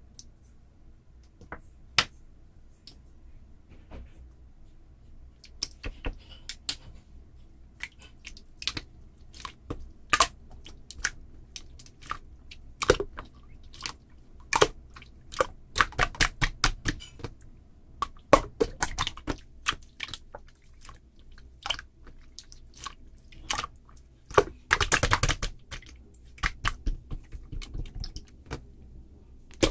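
Marbled slime being squeezed and poked by hand, giving irregular sharp pops and clicks, sparse at first and coming thick and fast through the middle, with a short crackling cluster near the end.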